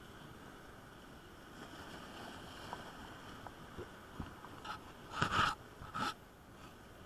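Steady sea-surf and wind noise, with a few short scraping knocks in the second half, the loudest about five seconds in.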